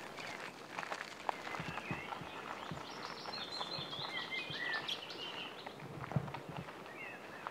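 Small songbirds singing and chirping, with a fast run of repeated high notes about three seconds in, over a scatter of footsteps on a path.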